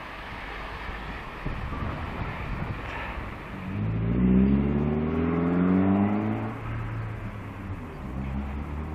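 Wind and road rush on a cyclist's camera, then about four seconds in a car engine accelerating, its pitch rising steadily for two or three seconds before dropping to a low steady hum.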